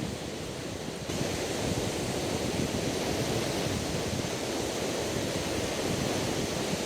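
Lake Michigan waves washing onto a sandy beach on a windy day, with wind rushing over the microphone; the sound gets louder about a second in.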